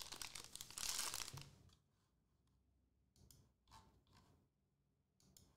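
Foil trading-card pack being torn open, a crinkly tearing for about the first second and a half, then a few short faint crinkles as the opened pack is handled.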